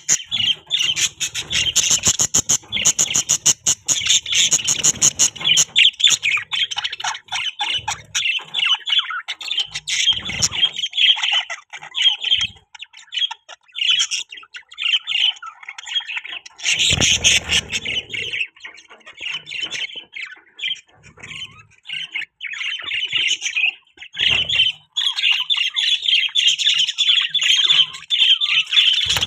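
A group of budgerigars chirping, warbling and squawking in a constant rapid chatter with only brief pauses.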